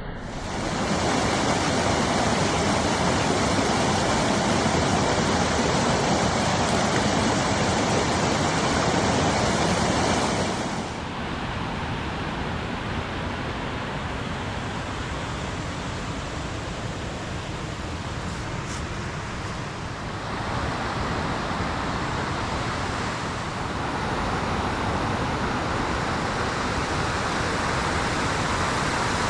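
Rushing water: a steady, full roar with no pitch. It gets louder about a second in, drops back near the middle, then rises again in two steps later on.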